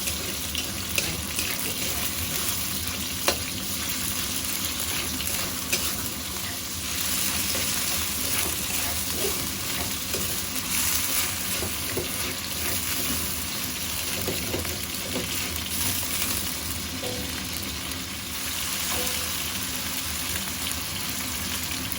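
Food frying in hot oil in a pan as it is stir-fried: a steady sizzle, with a few sharp clicks of a utensil against the pan.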